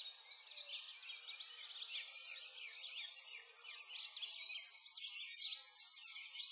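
A chorus of many small songbirds chirping, with quick high calls that rise and fall and overlap continuously.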